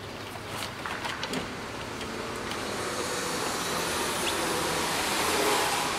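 Steady engine and tyre noise from a motor vehicle, a rushing hum that grows gradually louder, with a couple of light clicks in the first second and a half as plastic grille clips are pressed in.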